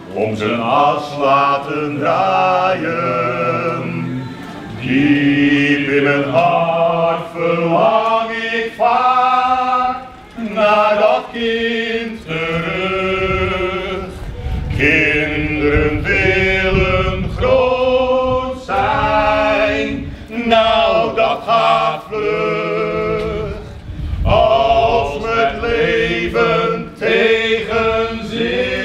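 Male vocal group singing a cappella in harmony, several voices at once with no instruments.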